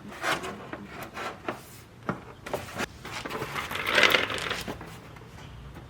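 Light knocks, taps and rubbing as a wide-body fender is handled and offered up against the car, with a longer scraping rasp about four seconds in.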